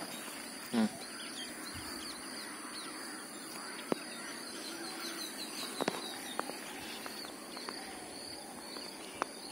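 Faint outdoor ambience: birds chirping thinly over a steady high hiss, with a brief low voice sound about a second in and a few soft clicks later on.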